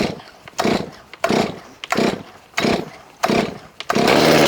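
New Stihl MS 400 C-M two-stroke chainsaw being pull-started cold on its first ever start: about six quick pulls on the starter rope, then the engine catches near the end and runs steadily.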